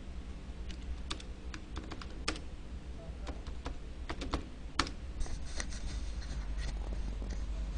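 Computer keyboard being typed on: a string of separate, uneven keystrokes as a login password is entered, over a steady low hum.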